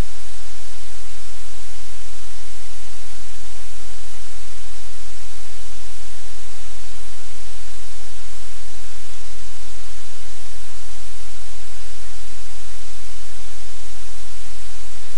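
Loud, steady static hiss: an even electronic noise from the audio feed, with no other sound standing out.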